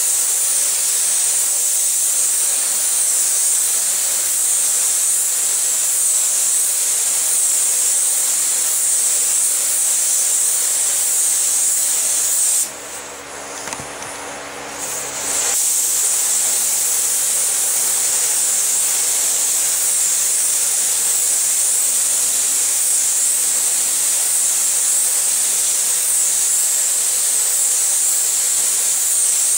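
Paint spray gun hissing steadily as paint is sprayed. The spray stops for about three seconds midway, then resumes.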